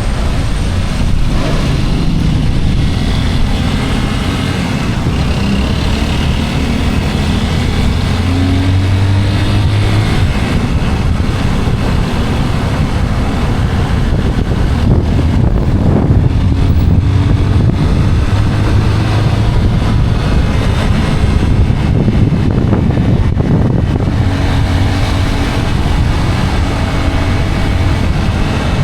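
Motorcycle ride through traffic: the engine runs and picks up speed, with heavy wind rushing over the microphone and road noise.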